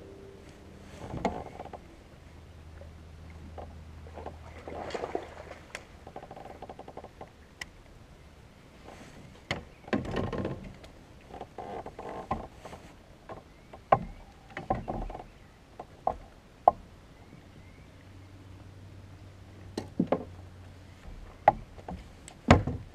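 A bass being reeled in and landed beside a plastic fishing kayak: water splashing in two longer bursts near 5 and 10 seconds, with sharp knocks and clicks of gear against the hull, several of them near the end as the fish is brought aboard.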